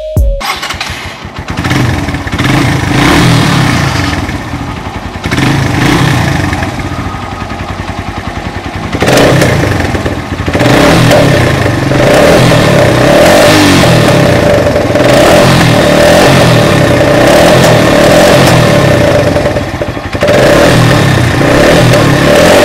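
Motorcycle engine revving up and down over and over through its exhaust, getting louder from about nine seconds in.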